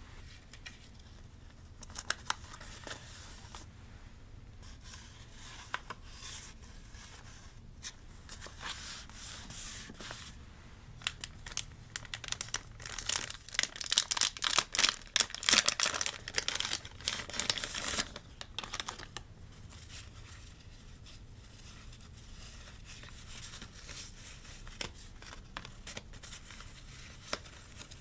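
Paper being torn and crinkled by hand, quiet scattered crackles with a busier, louder stretch of tearing and rustling from about eleven to eighteen seconds in.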